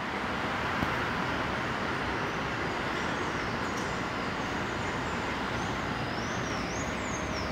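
Steady city traffic hum. From about two and a half seconds in, birds chirp in short, high, rising-and-falling calls.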